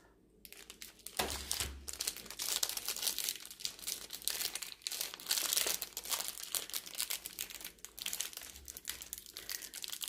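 A Cadbury Picnic chocolate bar's plastic wrapper being torn open and crinkled by hand: a dense run of crackles and rustles that starts about half a second in.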